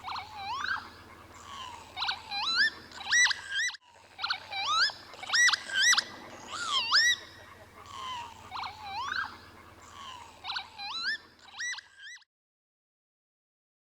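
Northern lapwing calling over and over: wheezy 'kie-wit' calls that dip and then rise sharply, about one a second or faster, with a faint steady low hum underneath. There is a brief break about four seconds in, and the calls stop about twelve seconds in.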